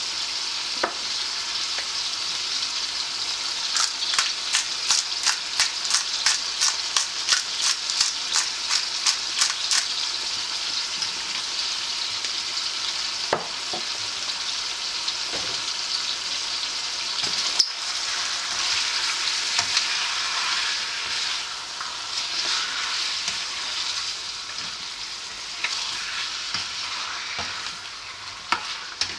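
Chicken pieces frying in oil in a wok, a steady sizzle. About four seconds in, a run of quick, even clicks at about three a second lasts some six seconds as salt and ground black pepper go onto the chicken; near the end come a few knocks and scrapes as the chicken is stirred.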